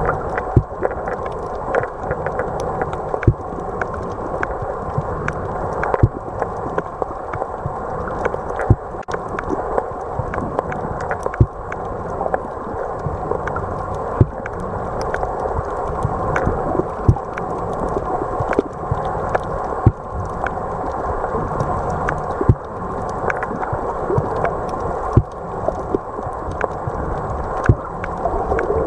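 Muffled underwater ambience from a submerged camera: a steady low rushing, scattered with many short sharp clicks and pops.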